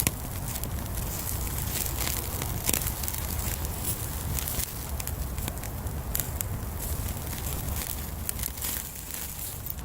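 Bonfire crackling, with irregular sharp pops over a low steady rumble.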